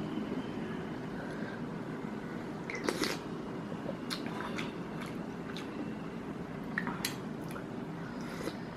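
A person eating rice and soup with spoons: quiet chewing with a scatter of short, light clicks, the sharpest about three seconds in.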